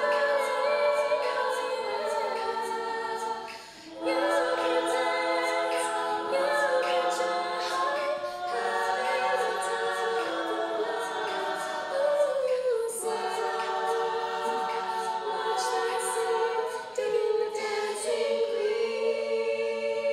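Women's a cappella group singing in harmony: a lead voice over sustained backing chords, with a steady clicking beat. The singing drops out briefly about four seconds in.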